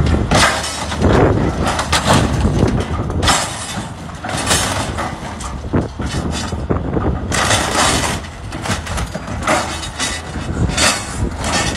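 Excavator grapple crushing and tearing a truck's cab: a rapid, irregular run of loud metal crunches and bangs as the sheet metal gives way, over the low rumble of the machine's running engine.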